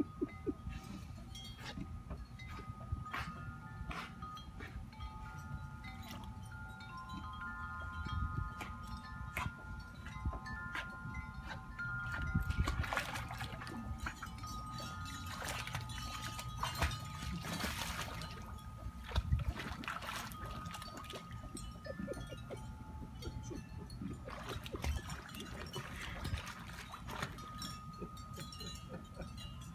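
Wind chimes ringing on and off, several held tones of different pitch overlapping, over light water splashes from a husky paddling in a swimming pool.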